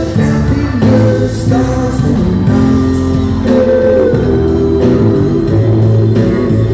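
Live rock band playing a song: organ, electric guitar, bass and drums, with singing over them.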